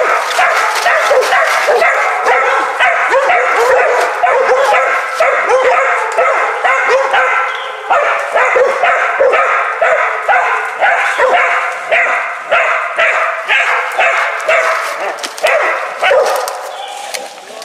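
Young hog dogs baying a wild hog: rapid, continuous barking and yelping from several dogs at once, easing briefly near the end.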